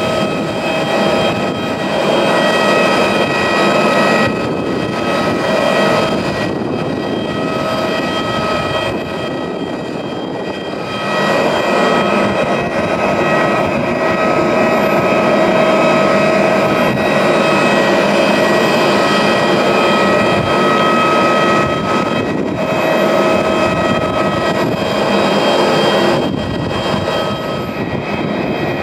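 Jet airliner parked at the gate, running: a loud steady rushing roar with a high whine of several steady tones, easing briefly about ten seconds in.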